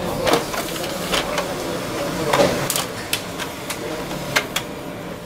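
HP LaserJet MFP M438nda copier running a copy job: a steady motor whir as the automatic document feeder draws the original sheet through, with repeated sharp clicks and clacks from the mechanism.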